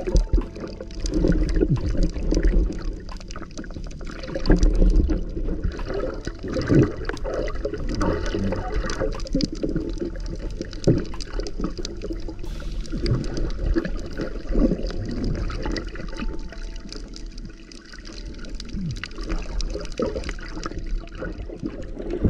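Underwater water noise heard through a submerged camera: gurgling and sloshing over a constant low rumble, with many irregular clicks and crackles.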